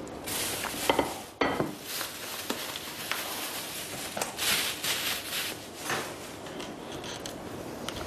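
Dishes and cutlery clattering: a string of short clinks and knocks, several close together in the first two seconds and more spread out after.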